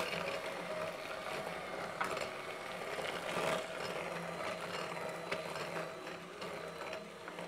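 Electric hand mixer running steadily, its beaters working butter, sugar and egg into a muffin batter.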